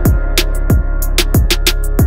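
Background music: an electronic track with a steady beat of deep kick drums that drop in pitch, sharp high percussion hits and a sustained bass.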